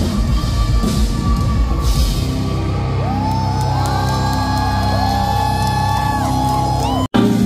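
Live progressive metal band playing loud through a venue PA: drums and distorted guitars, with long held notes over the band from about two seconds in. The sound cuts out abruptly about seven seconds in, and the next song starts.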